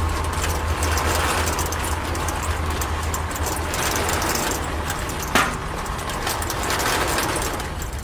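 Toy miniature concrete mixer's small electric motor running, turning a drum holding a wet cement mix, with a steady low hum under a rattling, grinding noise. A single sharp knock about five seconds in.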